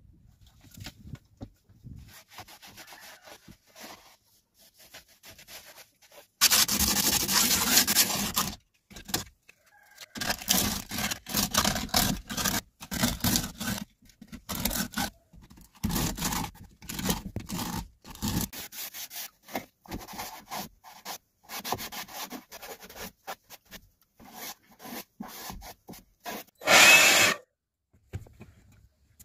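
Sandpaper rubbing over a hand-made plaster cup holder, in repeated irregular scraping strokes, with a longer loud stretch early on and one brief louder rasp near the end.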